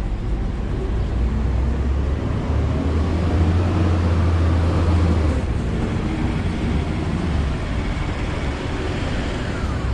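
City street traffic, with a heavy vehicle passing; its low engine rumble swells from about two and a half seconds in and eases after about five seconds.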